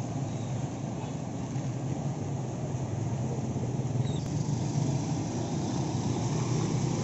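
Steady rush of a swollen, fast-flowing flooded river, mixed with the running of motorbikes and cars passing on the road beside it.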